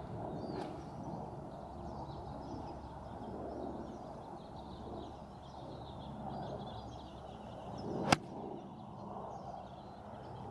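Golf club striking the ball: one sharp crack about eight seconds in, over a steady outdoor background with faint bird chirps.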